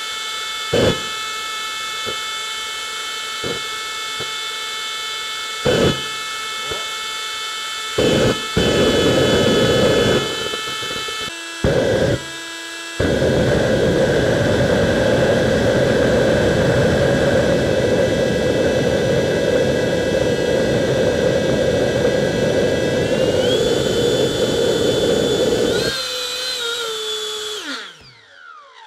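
Electric ducted fan running with a steady high whine while an afterburner is fired through a clear tube. Short bursts of rushing noise come first. From about 13 s a loud continuous rushing is heard as the fuel burns in the tube, and the fan's whine rises near the end of it. The rushing stops about 26 s in and the fan winds down.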